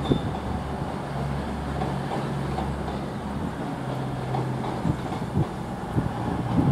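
Class 66 diesel-electric locomotive's two-stroke EMD V12 engine running at low power as it moves slowly, a steady low drone. A few short knocks come in the second half as it crosses the pointwork.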